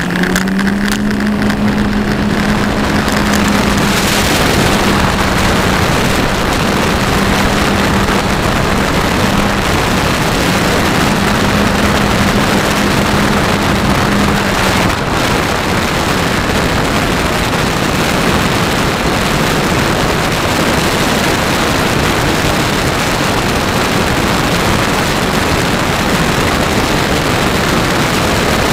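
Motor and pusher propeller of a fixed-wing RC survey aircraft running under power, with heavy wind rush over the microphone. A steady hum holds, with a brief break, until about halfway through, then only the rushing noise is left.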